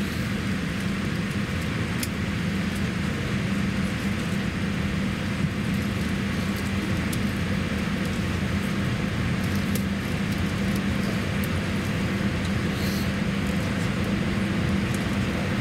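Steady low hum of a Boeing 787-8's cabin ventilation while the airliner stands at the gate, with a few faint clicks.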